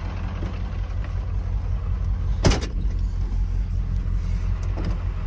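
Diesel engine running steadily with a low rumble. About two and a half seconds in there is a single sharp knock as the pickup's cab door shuts, plus a couple of faint clicks.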